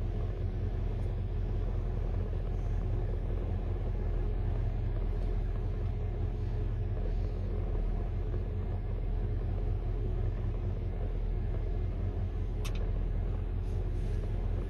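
Steady low rumble of a car being driven, engine and road noise running evenly.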